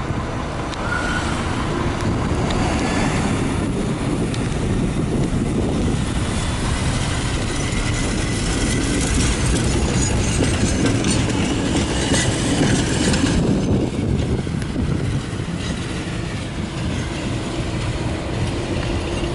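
Tram running past close by on snow-covered street tracks, over steady traffic noise. Its noise grows as it goes by around the middle and drops away suddenly a few seconds later.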